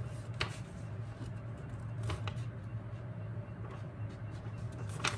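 A sheet of drawing paper being folded by hand, with a few faint rustles and taps, once near the start, once about two seconds in and once near the end. A steady low hum runs underneath throughout.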